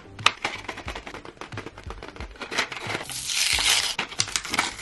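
Hands opening a plastic-and-cardboard blister pack of mechanical pencils: a run of crinkling and crackling clicks, then a longer ripping of the card backing about three seconds in.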